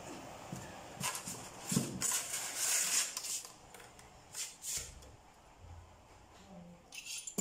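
Handling noise as a small two-stroke bicycle engine is turned over in its polystyrene foam packing: about two seconds of scraping and rubbing starting a second in, then quieter fiddling with the aluminium clutch cover and a few light clicks near the end.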